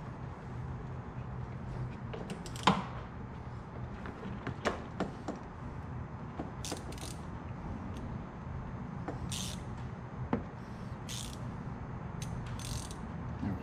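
Hand ratchet with a deep socket working 8mm screws loose behind a Corvette taillight opening: short bursts of ratchet clicking, several times, with scattered sharp clicks and knocks of the tool against the body, the loudest about a third of the way in.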